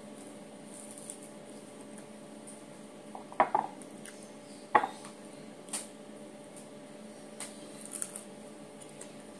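Two sharp knocks against a ceramic bowl as a guava slice is dipped into it, then a few softer taps and clicks, over a steady faint hum. Near the end, a bite into raw guava.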